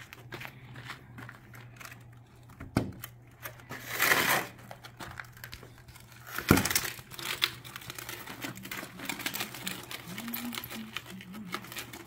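Plastic garden hose reel cart being handled and moved, with rattling, crackling clicks of the reel and frame, a louder rustle about four seconds in and a sharp knock a couple of seconds later.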